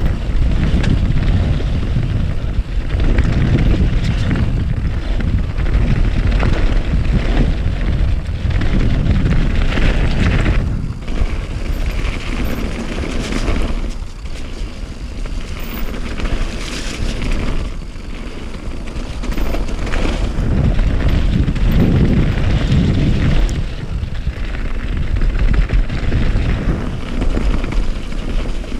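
Wind buffeting the microphone on a moving vehicle, a loud rough rushing that surges and eases, with vehicle and road noise beneath.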